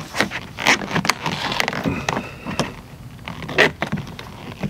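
Plastic in-channel vent visor being pressed by hand into a truck door's rubber window channel: irregular short scrapes and clicks of plastic rubbing against rubber trim.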